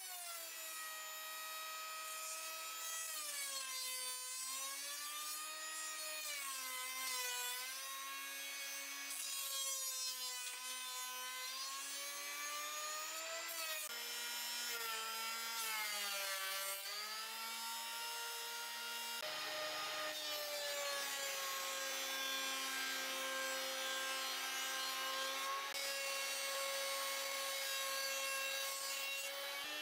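Thickness planer on a combination jointer-planer running as wooden boards feed through it, cutting. Its motor whine sags in pitch and recovers again and again as the cutterhead takes the load, then runs steadier late on.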